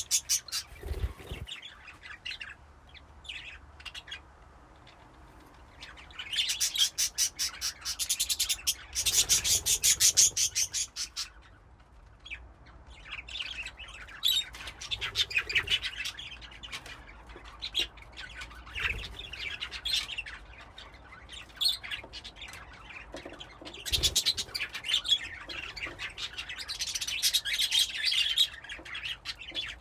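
Budgerigars in a colony cage chirping and chattering, with bursts of rapid, high chirps between quieter spells.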